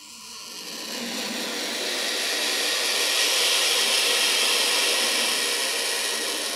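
Turkey vulture hissing: a long, breathy hiss that swells over the first few seconds and eases slightly near the end.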